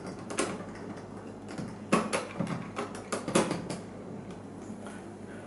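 A run of irregular plastic clicks and taps as keys are pressed on a Lenz LH100 DCC handset. The loudest clicks come about two seconds in and again around three and a half seconds.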